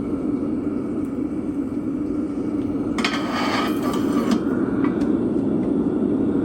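Homemade forge's air blower running steadily, with a brief metallic clatter about three seconds in.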